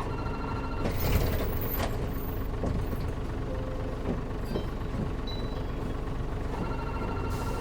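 Interior running sound of a Mitsubishi Fuso KL-MP37JM city bus with its turbocharged diesel engine and road noise running steadily, heard from inside the cabin. There are a few knocks and rattles about a second in and a thin high whine near the start and again near the end.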